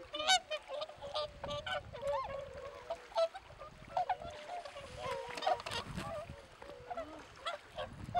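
A flock of whooper swans calling: many short calls from several birds, overlapping one after another.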